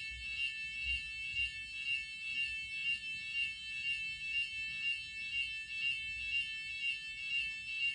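Hotel fire alarm sounding a continuous high-pitched electronic tone that wavers slightly and evenly. Reception calls it a false alarm.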